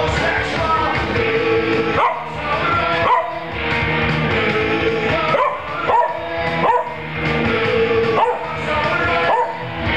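A Pembroke Welsh Corgi singing along in several short, gliding yips and howls over a loud punk rock song with saxophone.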